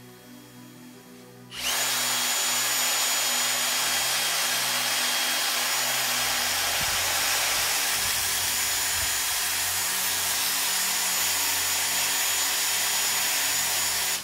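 Cordless drill spinning a plastic roller-skate wheel on a bolt while sandpaper is held against it: a steady, loud sanding hiss with the drill motor's faint high whine. It starts about one and a half seconds in.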